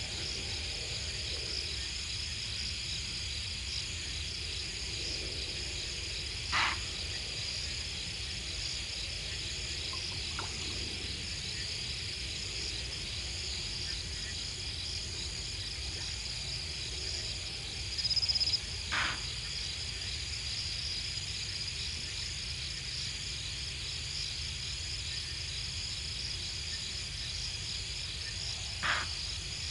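Steady night chorus of crickets and other insects, a continuous high chirping. Three short, sharp calls stand out over it, about a fifth of the way in, near the middle and near the end, with a brief high note just before the middle one.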